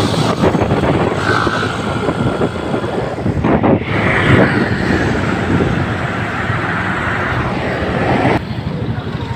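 Wind rushing over the microphone of a moving motorcycle, with its engine running underneath; the noise drops a step near the end.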